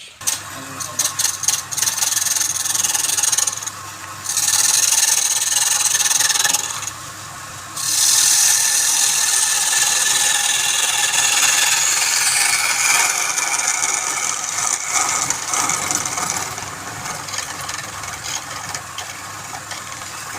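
Wood spinning on a woodturning lathe being worked by a tool, a steady scraping hiss, with two short lulls about 4 and 7 seconds in.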